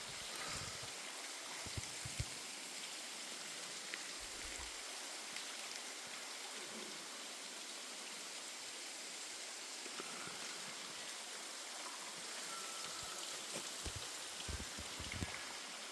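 Waterfall's falling water rushing in a steady hiss, with a few soft low thumps now and then.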